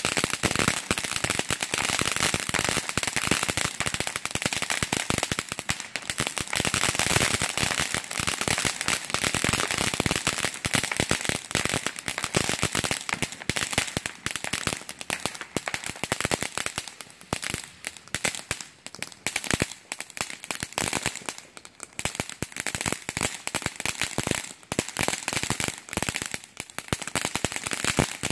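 Black Cat "Firecracker Barrage" ground firework spraying sparks with a rapid, continuous crackle of small firecracker pops. The pops come thickest in the first half and thin out into more scattered bursts as it burns down.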